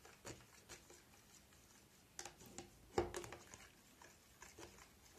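Faint, scattered sticky clicks and squelches of glue, water and blue paint being mixed by hand, with a louder squelch about three seconds in.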